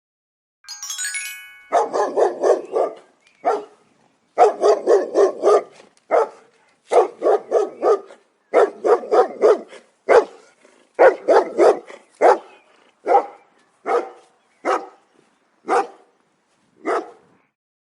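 A dog barking, first in quick runs of several barks, then in single barks about a second apart. A short musical chime sounds just before the first bark.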